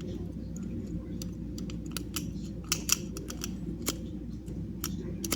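Improvised wire rake being worked in a disc padlock: an irregular run of small metallic clicks and scrapes as it is jiggled against the lock's internals.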